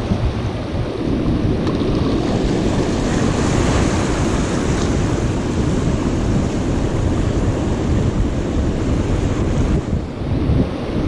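Wind buffeting the microphone over surf washing among shoreline rocks, a steady, gusty rush.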